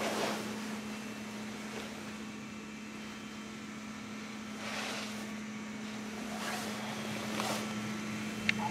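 A faint, steady low hum with soft swishes of handheld camera handling noise every second or two, and a couple of small clicks near the end.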